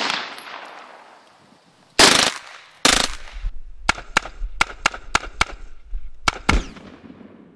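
A string of gunshots, each followed by a trailing echo: two heavier blasts about two and three seconds in, then about nine sharp shots in quick, uneven succession, dying away near the end.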